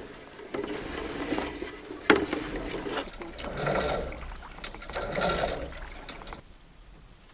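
Hand-pulled cable ferry being hauled across the water: irregular scraping and sloshing noise of the cable and hull, with a sharp clack about two seconds in and two louder swells of noise later before it dies down near the end.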